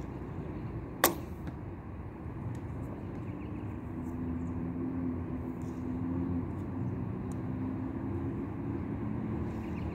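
Daylite Monarq Korean-style bow (45 lb) loosed once about a second in with a thumb release: a single sharp string snap as the arrow leaves. A steady low rumble runs underneath.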